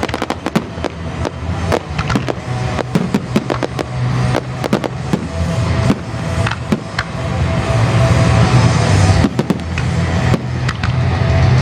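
Fireworks display: aerial shells bursting in quick succession, a dense run of sharp bangs and cracks over a continuous rumble, growing louder in the second half.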